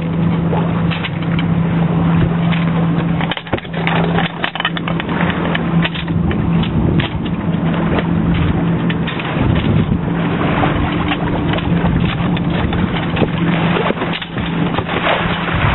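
Small outboard motor running steadily with a low hum, under heavy wind noise on the microphone; the hum drops out for a moment about three seconds in.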